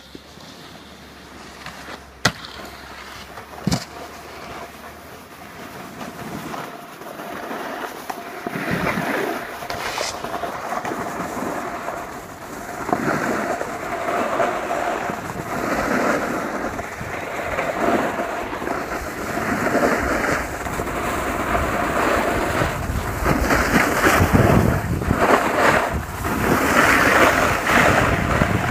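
Edges scraping and sliding over packed snow while riding down a piste, with wind buffeting the microphone; the scraping swells and eases every second or two with each turn and grows louder as speed builds. Two sharp knocks sound in the first few seconds.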